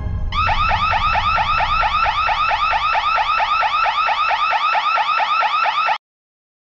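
Electronic security alarm sounding in fast repeated rising sweeps, about five a second, the alarm of a tripped laser-beam grid; it cuts off abruptly near the end.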